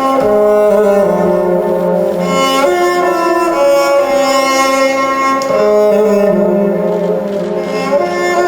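Instrumental music without vocals: a slow melody of long held bowed-string notes that change pitch about once a second.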